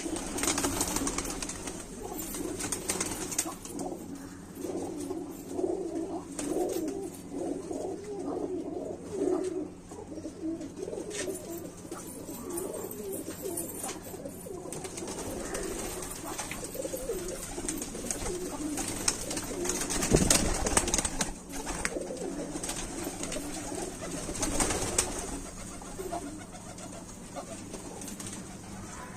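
Domestic pigeons cooing over and over in low, warbling calls, over a steady low hum. There is a brief louder rustle about two-thirds of the way through.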